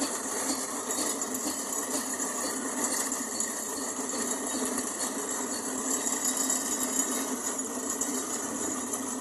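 A small machine running steadily without a break.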